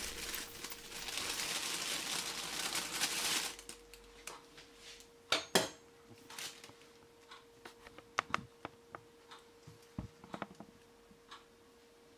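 Clear plastic oven bag crinkling as it is handled for about three and a half seconds, then scattered light clicks and taps.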